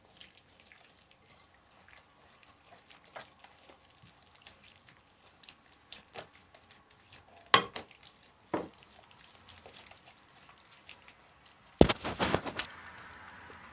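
Kitchen handling sounds while oil is added to a mixing bowl: faint liquid sounds and scattered soft clicks and knocks of a glass and utensils, with the sharpest knock near the end followed by a brief rustle.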